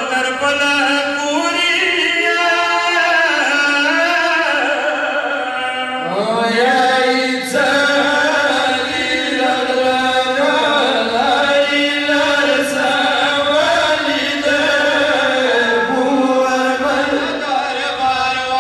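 Men chanting a Pashto noha, a Shia mourning lament, into microphones in long, drawn-out melismatic notes. The line breaks off briefly about six seconds in and restarts on a rising note.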